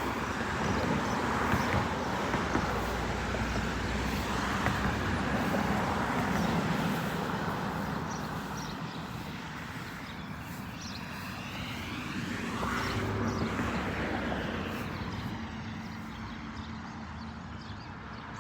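Busy road traffic: a steady wash of engine rumble and tyre noise, louder in the first few seconds and swelling again as a vehicle goes by in the middle. Faint short bird chirps sound high above the traffic.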